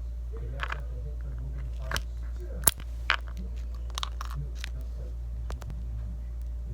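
Sour hard candy being bitten and chewed up close: a handful of sharp cracks and crunches, the loudest a little before the middle, over a steady low hum.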